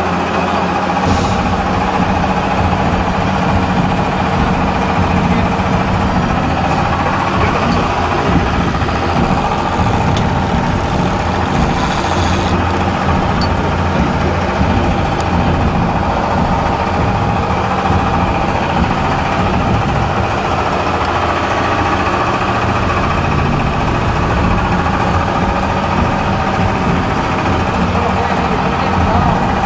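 Engine running steadily at an even, low pitch, with a brief hiss about twelve seconds in.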